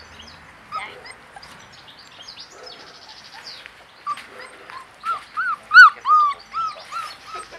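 White Swiss Shepherd puppies whimpering: a run of high, arching whines about two a second, starting about four seconds in and growing louder.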